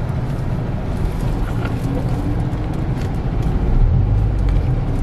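Car noise heard from inside the cabin: a steady low rumble that grows somewhat louder near the end.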